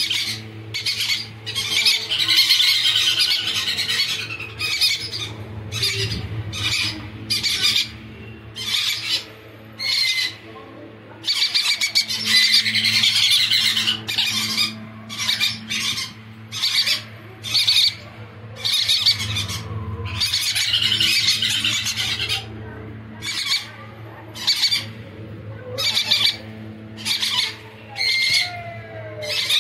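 Yellow-sided conures squawking: short harsh calls repeated again and again, broken by longer stretches of continuous screechy calling, over a steady low hum.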